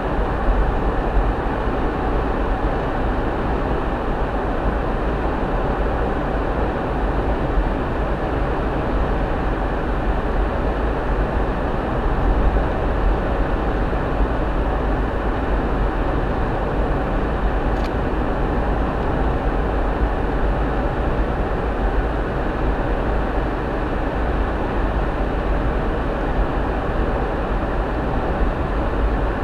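Steady road noise inside a car cruising on a sealed country road: a constant drone and tyre rumble at an even speed, with no change in pitch.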